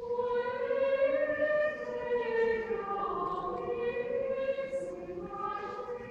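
Choir singing a slow liturgical chant in unison, one melody moving through long held notes.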